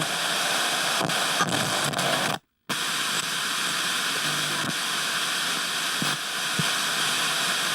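Radio static: a steady hiss of interference noise with a few faint clicks. It cuts out completely for a moment about two and a half seconds in, then comes back.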